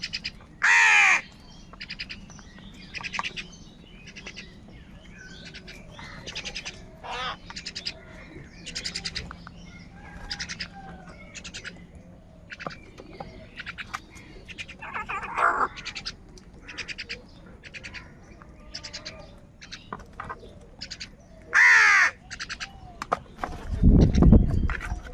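A flock of crows cawing, many overlapping harsh calls coming one after another, with a few especially loud caws about a second in and again near the end. Shortly before the end a deep, loud rumbling noise rises up under the calls.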